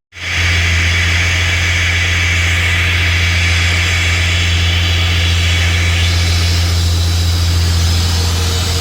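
Turbocharged V6 Commodore engine idling steadily: a deep, even drone with a steady hiss over it.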